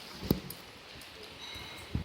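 Two short, dull knocks, the first about a third of a second in and the louder, the second near the end, over a steady background hum.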